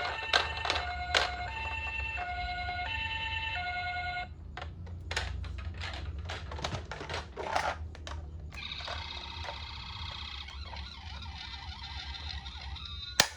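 Toy ambulance minicar's electronic two-tone siren alternating high and low notes, then a quick run of sharp clicks, then a different steady electronic tone, with one loud click near the end.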